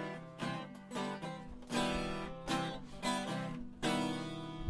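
Acoustic guitar strummed in a steady rhythm of chords: the instrumental ending of a song after its last sung line.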